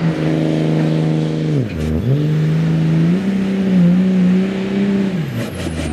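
Dodge Ram diesel pickup engine running at high, steady revs under full load while pulling the sled. The revs dip sharply about two seconds in and climb straight back, then fall away near the end.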